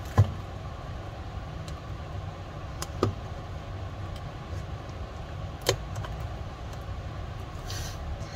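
Plastic packaging being cut with scissors and handled: three sharp clicks a few seconds apart and a short rustle near the end, over a steady low background rumble.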